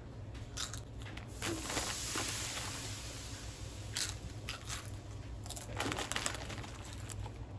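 Crisp crunching of Doritos tortilla chips being bitten and chewed, with the foil chip bag crinkling under a hand. Sharp crunches come in scattered bursts, with a longer rustle about two seconds in.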